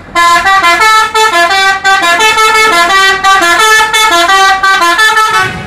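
Tour bus's multi-tone "telolet" air horn playing a quick melody, its notes changing several times a second, dying away just before the end.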